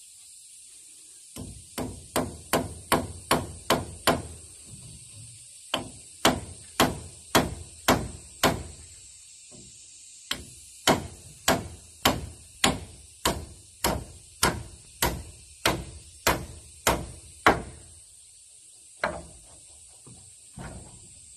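Hammer driving nails into a wooden post, in three runs of steady, evenly spaced blows about two to three a second, followed by a few scattered knocks near the end.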